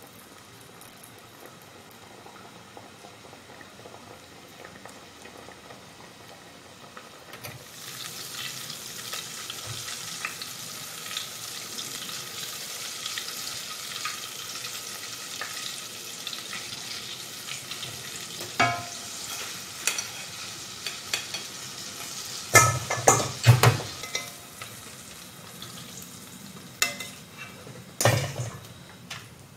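Flour-coated mushroom and jackfruit pieces deep-frying in hot oil, a steady sizzle that starts about a quarter of the way in. Sharp knocks of a metal spoon against the pot and strainer come several times in the second half, loudest about three quarters of the way through.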